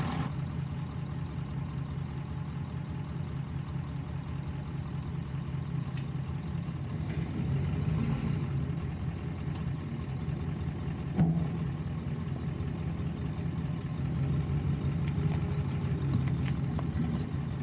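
Off-road truck engine running steadily at low revs as the truck crawls slowly over rough ground. A few faint clicks, and one sharp thump about eleven seconds in.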